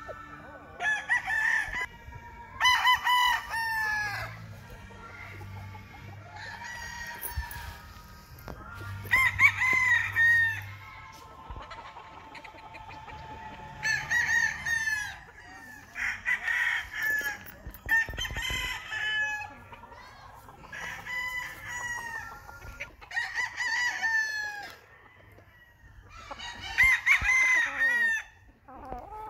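Young gamefowl chicken crowing and clucking, calling again and again in short pitched calls every couple of seconds.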